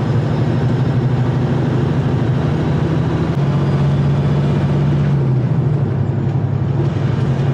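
Loaded semi-truck's diesel engine running under way, heard from inside the cab as a steady low drone with road noise. The engine note shifts about three seconds in and again near five seconds, where the higher hiss dies down.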